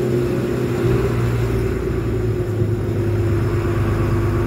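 Motor vehicle engine running steadily: a low droning hum with a steady higher tone over it.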